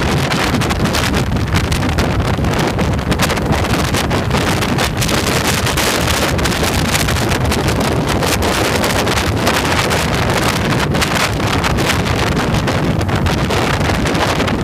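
A steady rush of wind buffeting the microphone on a moving motorcycle, mixed with its engine and road noise at cruising speed.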